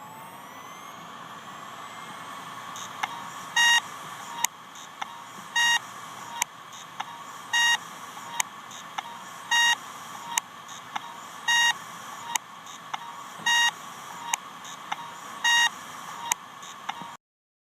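Failing hard drive spinning with a steady whine, broken every two seconds or so by a click and a short beep-like buzz, a repeating failure pattern. The sound cuts off suddenly near the end.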